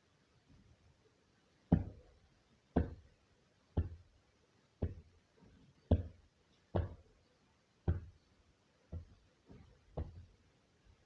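A series of about ten dull knocks, evenly spaced roughly once a second, keeping time like a count of seconds.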